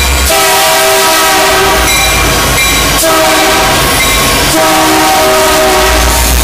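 Multi-chime air horn of a passing EMD GP60M diesel locomotive, sounded in four blasts of about a second to a second and a half each, with short breaks, as the train runs down a city street. Under the horn is the low rumble of the passing locomotives and rail cars.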